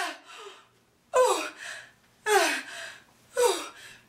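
A woman crying out in pain while clutching her abdomen. There are four short cries about a second apart, each falling in pitch and followed by a softer breath.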